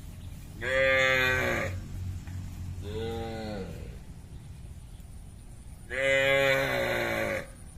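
Cattle mooing: three long calls, the first and last loud and the middle one softer, each dropping in pitch as it ends.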